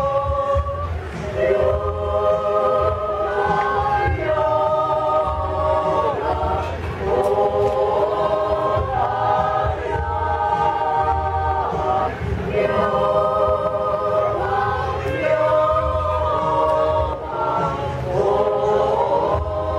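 Women's choir singing a cappella in harmony: phrases of held chords with short breaks for breath, over a faint low rumble.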